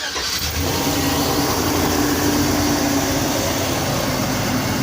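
2004 Chevrolet Express van's engine running at a steady idle just after a cold start, even and smooth with no misfire.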